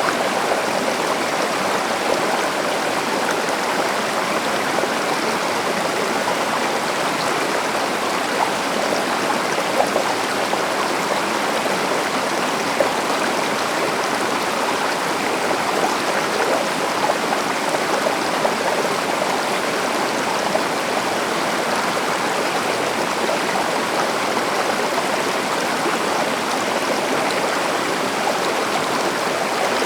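A stream running steadily over rocks, a constant rushing and babbling of water with small splashes now and then.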